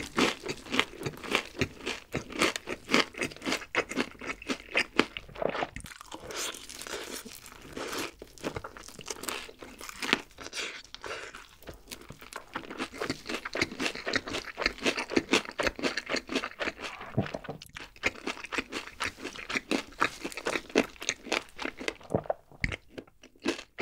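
Close-up eating sounds: crispy fried chicken crunching and being chewed in many irregular bites, with a short lull near the end.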